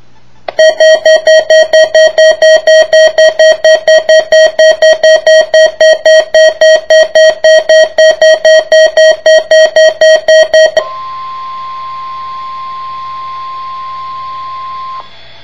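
Midland WR-300 weather radio sounding its alert alarm for the weekly test: loud, rapid pulsing beeps at about four a second for some ten seconds. The beeps then give way to the broadcast's steady single-pitch warning alarm tone through the radio's speaker, which stops suddenly about four seconds later.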